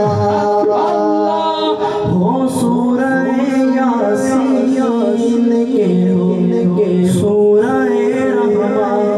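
Unaccompanied male singing of a devotional chant, with long held notes over a steady drone-like tone.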